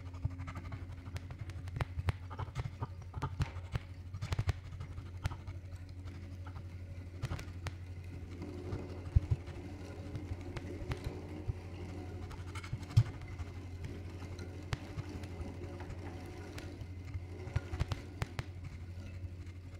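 Improvised experimental music: a steady low drone with sparse, irregular clicks, taps and knocks over it, two of them stronger, about nine and thirteen seconds in.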